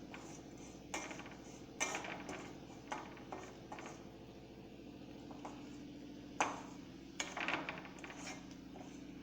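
A metal utensil knocking and scraping several times in a kadhai (iron wok) of melting alum, the loudest knock about six and a half seconds in, over a steady low hum.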